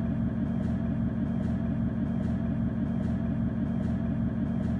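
Underfloor diesel engine of a Class 156 Sprinter diesel multiple unit idling at a standstill, heard inside the passenger saloon as a steady low rumble.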